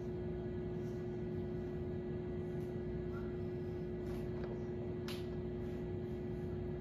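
Steady hum of a small egg incubator's fan motor running, with a faint click about five seconds in.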